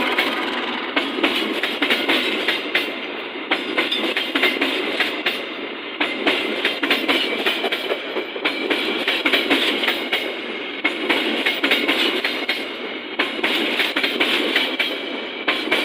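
Train rolling past, its wheels clicking over rail joints in a fast, uneven clatter over a steady rumble.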